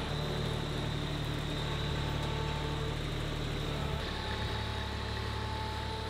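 LS compact tractor's diesel engine running at low speed as the tractor drives across a barn floor, a steady hum whose low note shifts about four seconds in.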